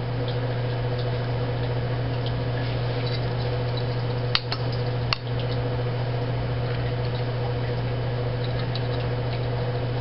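Steady low hum throughout, with two light clicks about four and five seconds in as the small brass and ceramic parts of a tankless water heater's oxygen depletion sensor are fitted back together by hand.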